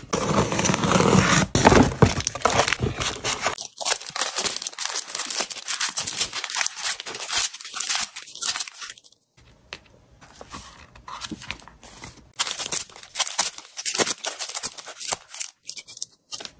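A taped cardboard mailer being torn open, loudest in the first few seconds, then plastic packaging sleeves crinkling and rustling as they are handled, with a quieter stretch in the middle.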